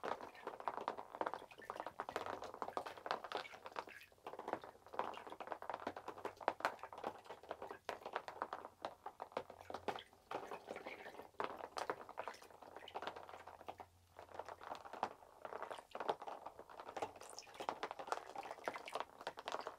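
Small battery-powered robot fish swimming in a plastic tub of water, their little rear propellers churning the water: faint, irregular splashing and bubbling with light ticks.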